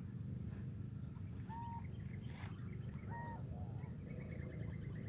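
Birds calling: short, level call notes every second or two, and a quick run of chirps near the end, over a steady low hum.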